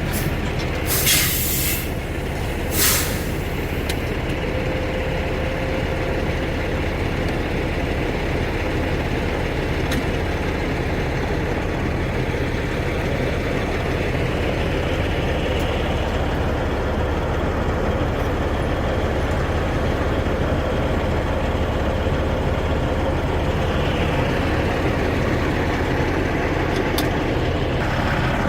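Semi truck's diesel engine running steadily, with two short hisses of released air about one and three seconds in.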